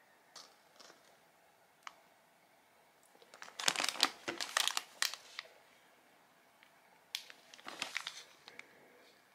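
Plastic packaging crinkling as it is handled: packs of floor-cleaning sheets and retort food pouches. A few light taps come first, then a longer, louder spell of crinkling about three and a half seconds in and a shorter one about seven seconds in.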